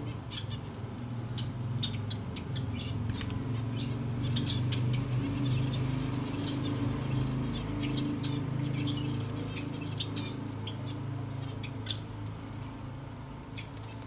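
Aviary birds fluttering their wings, with many short ticks and chirps and a few brief high falling calls later on, over a steady low hum.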